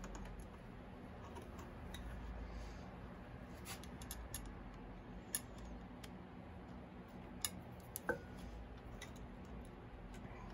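Small scattered clicks and light taps of a motorcycle voltage regulator and its wire terminals being handled and fitted into place, with a few sharper clicks in the second half, over a low steady hum.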